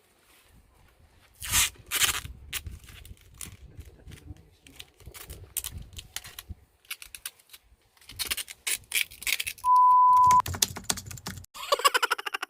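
A run of quick, irregular clicks and clatters, then a short steady beep about ten seconds in, and a fast buzzing rattle just before the end.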